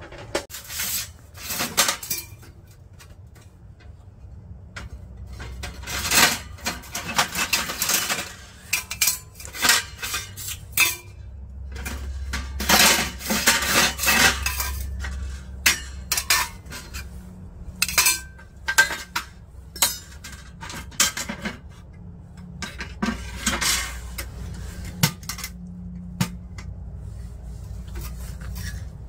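Stainless-steel stove-pipe sections of a Winnerwell Nomad camping wood stove clanking, clinking and scraping against each other and the stove body as they are pulled out and set down, in several busy spells of metal knocks.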